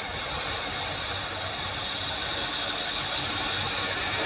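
Steady noisy rumble of an approaching train, slowly growing louder.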